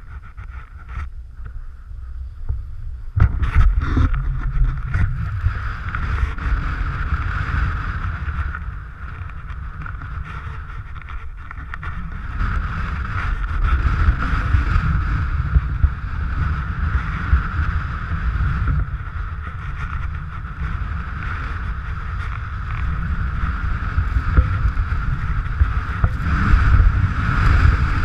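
Wind buffeting the microphone of a pole-mounted camera as a skier descends, with the steady hiss of skis sliding over packed snow. It grows louder about three seconds in and stays loud.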